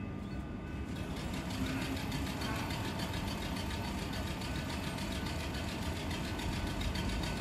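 Stationary electric suburban trains idling at a station, their onboard machinery giving a steady mechanical hum with faint steady tones.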